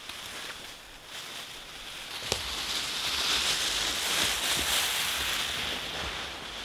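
Footsteps crunching through dry fallen leaves, growing louder as the walker comes close and fading as he moves off, with one sharp snap of a stick about two seconds in.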